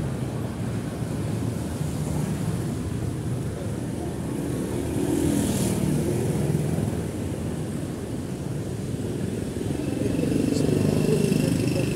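Street traffic of motor scooters and motorcycles running past, swelling louder twice, about five seconds in and again near the end.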